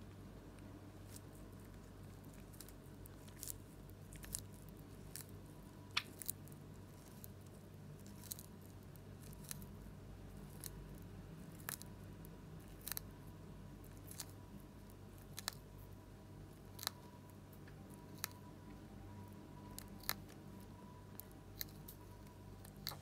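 Tortoise biting and tearing fresh molokheiya (jute mallow) leaves: faint, crisp crunching clicks at an irregular pace, roughly one a second.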